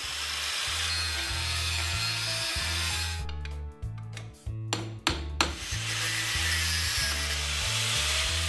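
Steady rasping of hand metalwork on a steel pipe clamped in a bench vise, broken about three seconds in by a run of sharp clicks and short scrapes, then resuming. A music track with a stepping bass line plays underneath.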